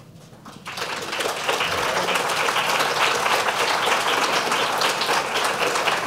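Audience applauding: many hands clapping, starting just under a second in and swelling to full within about a second.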